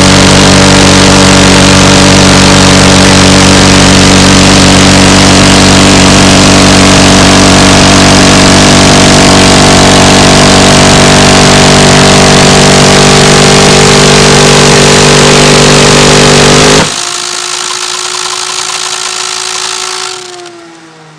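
Dillon Aero M134 minigun firing one continuous burst, its rounds merging into a single unbroken buzz until it cuts off suddenly about 17 s in. A quieter whine from the spinning barrel cluster follows, falling in pitch near the end as the barrels wind down.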